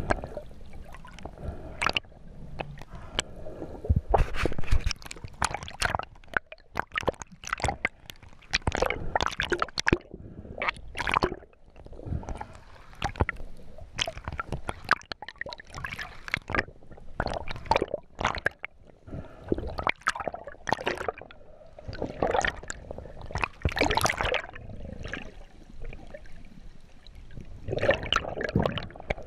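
Water sloshing and gurgling around an underwater action camera, with uneven bubbly crackles and splashes from a freediver's fins kicking near the surface.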